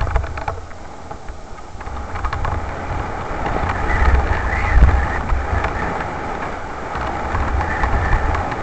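Wind buffeting the microphone of a camera on a mountain bike descending a dirt trail, with tyre roar over dirt and leaves and the bike rattling and clicking over bumps. The rumble swells about halfway through and again near the end.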